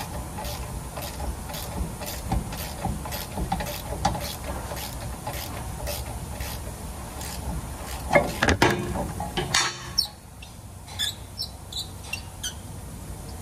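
Hand ratchet with an extension clicking in a steady run of strokes as a rear brake caliper bolt is turned. About eight seconds in comes a louder metal clatter and scrape, followed by a few light ticks.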